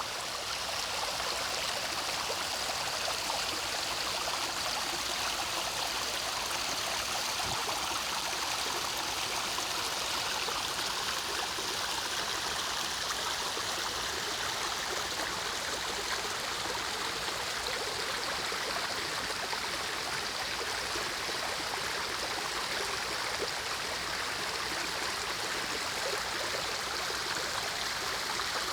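Mountain stream running over rocks in a forest valley: a steady rush of flowing water.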